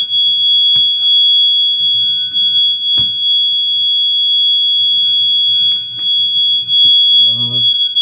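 Fire alarm sounding one continuous, high-pitched tone, with a few sharp knocks over it.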